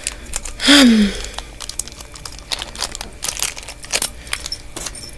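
Small clear plastic packaging crinkling, with quick clicks and taps from handling, as a padlock and key are unwrapped. A short falling hum from a voice comes about a second in.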